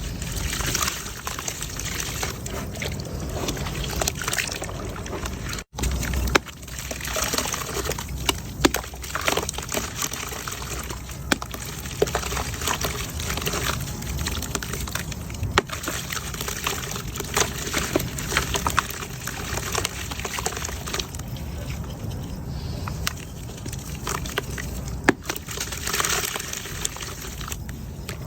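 Wet concrete mud crumbling and breaking apart in water: a steady trickling, pouring wet sound laced with frequent small sharp cracks. There is a brief break about six seconds in.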